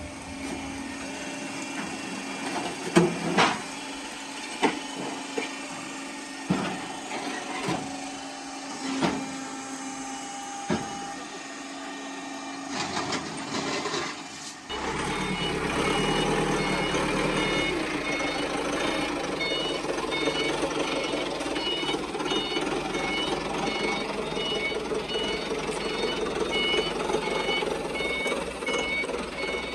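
A concrete block machine's pallet conveyor running with a steady motor hum and irregular metal clanks. About halfway through, a forklift engine takes over with its reversing alarm beeping over and over, a little faster than once a second.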